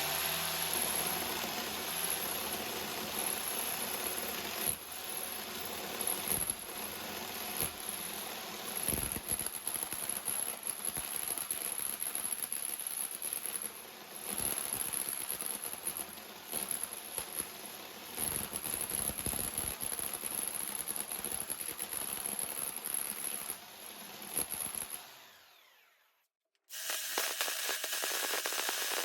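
SDS drill with a socket-box cutting bit grinding into brick, running in uneven stretches as the load on it rises and falls, then winding down and stopping near the end.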